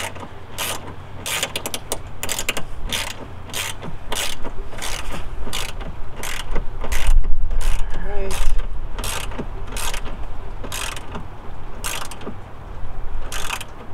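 Ratchet wrench clicking in short repeated strokes, about two to three clicks a second, as the headlight mounting bolts are tightened. A heavier low rumble of handling noise comes in around the middle.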